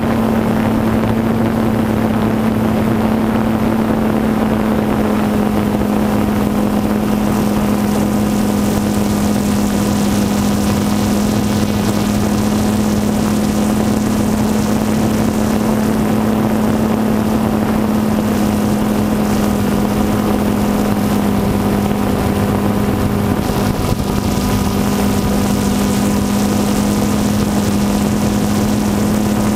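Camera drone's motors and propellers running steadily while it hovers, heard from the craft itself: one unchanging hum over a rushing hiss.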